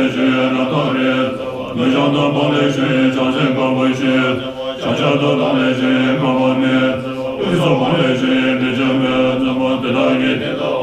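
Tibetan Buddhist monks chanting together in long held tones, each phrase breaking off and starting again every couple of seconds.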